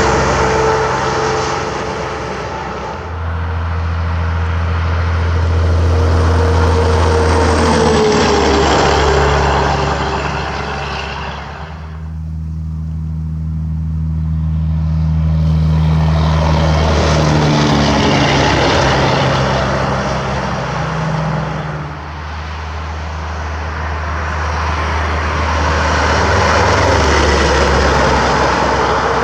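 Semi-trucks passing on a highway one after another: engine and tyre noise swells and fades about every ten seconds, with the engine pitch dropping slightly as each one goes by.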